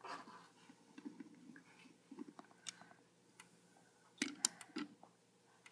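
Johnny Lightning die-cast toy cars being handled and set down on a table: faint light clicks and taps, with a cluster of sharper clicks about four seconds in.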